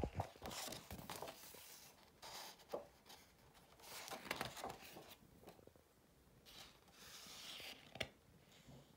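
Pages of a large photobook being turned by hand: several quiet paper rustles and slides as the sheets are lifted and laid over, with a light tap near the end.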